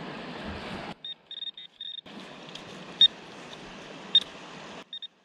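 Short high beeps from a metal detector: a quick cluster of pips, then two louder single beeps, over a steady rushing wind-and-surf noise that cuts out and back in abruptly.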